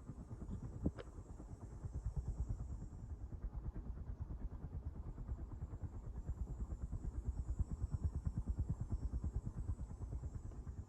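Golden industrial 36-inch ceiling fan running at high speed, with a rapid, even low pulsing of about six or seven beats a second from the blades.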